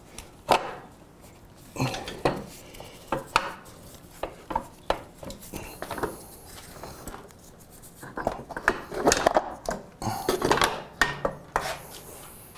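Metal parts and hand tools knocking, clinking and scraping against a motorcycle's rear frame as a stuck part is worked loose: irregular sharp clanks, busier in the last few seconds.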